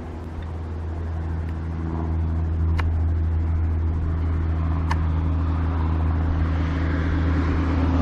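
Steady low hum of an idling engine, slowly growing louder, with two faint clicks about three and five seconds in.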